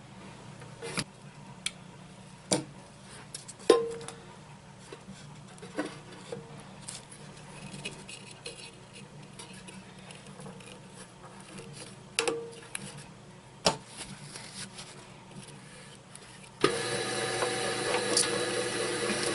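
Rock tumbler parts being handled and fitted back together: scattered clicks and metal clinks, a few of them ringing briefly. About three seconds before the end, the rock tumbler, rebuilt with new bearings, is switched on and its motor and rollers start running steadily.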